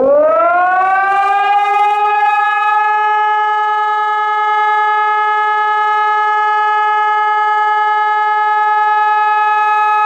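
Rooftop electronic civil-defence siren sounding in a test of the industrial-accident (Störfall) warning. Its pitch climbs over the first second or two, then holds as one loud, steady tone.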